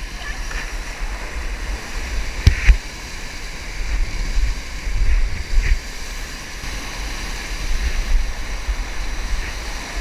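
Whitewater rapids rushing steadily around a pinned raft, with low rumbling buffets on the microphone. Two sharp knocks come about two and a half seconds in.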